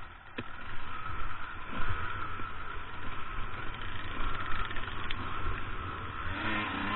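Two-stroke enduro dirt bike engine running as the bike rides a rough forest trail, its loudness rising and falling with the throttle. Toward the end it climbs into a higher-pitched rev.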